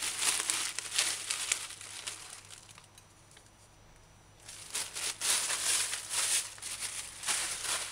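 Thin plastic spice bag crinkling as it is handled and emptied, in two spells with a quiet pause of about two seconds in the middle.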